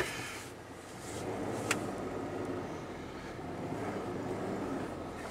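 1998 GMC Sonoma pickup's engine idling steadily, heard from inside the cab, with a single sharp click about a second and a half in.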